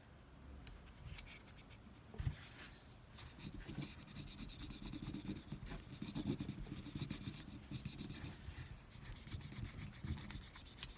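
Scrubbing inside a Glock pistol's chamber, a fast, dense run of back-and-forth rubbing strokes, with a single knock about two seconds in.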